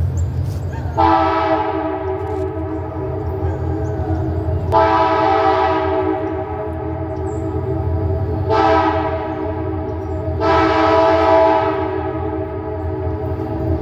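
Freight locomotive's multi-chime air horn sounding the long, long, short, long grade-crossing signal as an RJ Corman coal train approaches, over a steady low rumble.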